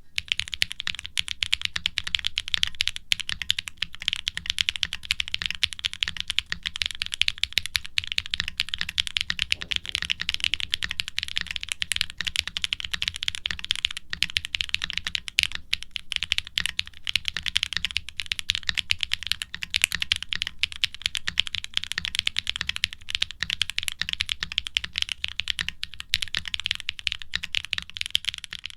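Fast, continuous typing on a custom aluminum mechanical keyboard (Wilba.tech Salvation with an FR4 plate, a brass internal weight and no sound dampening), fitted with lubed, linear Gateron Baby Kangaroo–style switches with nylon top housings and ABS keycaps. The keystrokes come as a dense run of clicks with a deep, clacky sound and a resonant ping.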